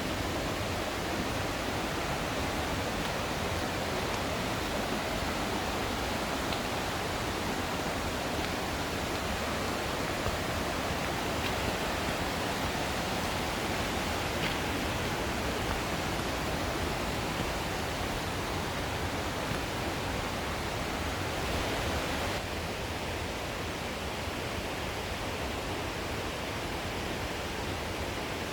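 Steady rush of water from a mountain stream and its waterfalls. It is a little quieter and duller about three-quarters of the way through.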